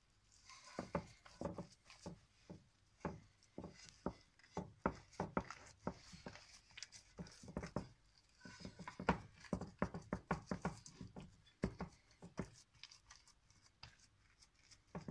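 Hands patting, pressing and tucking soft pie dough into a metal baking pan: a run of irregular soft taps and knocks, some close together, starting about half a second in.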